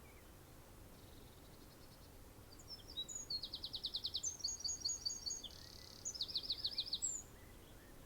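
A songbird singing a phrase of high chirps and rapid trills of evenly repeated notes, starting after a faint trill about a second in and stopping a little after seven seconds, over a steady faint hiss.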